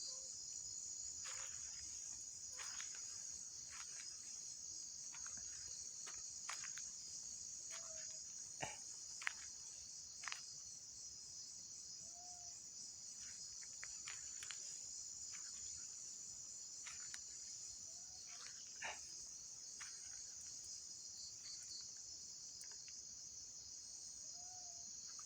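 Crickets chirring steadily in a high, continuous band, with scattered faint clicks and a few short, low chirps.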